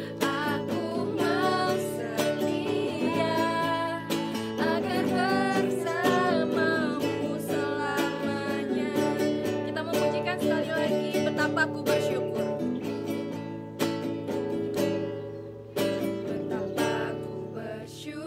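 Women's voices singing a children's worship song together over instrumental accompaniment, the music dipping briefly in loudness near the end.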